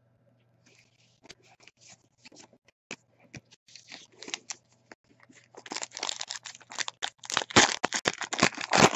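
Trading cards and paper card-pack wrappers being handled: sparse light clicks and rustles at first, then a dense run of crinkling and rustling from about halfway through.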